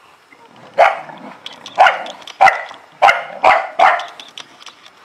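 Illyrian Shepherd puppy barking six sharp times in quick succession while play-fighting with a littermate.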